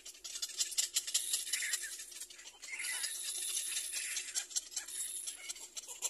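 Little black cormorant chicks begging for food in the nest: a rapid, high-pitched raspy chatter.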